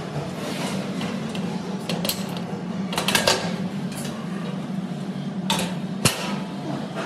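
White sheet-metal panels of a supermarket shelving rack being handled and fitted into slotted steel uprights: scattered metal clanks and scrapes, a cluster of them about three seconds in and the sharpest knock about six seconds in.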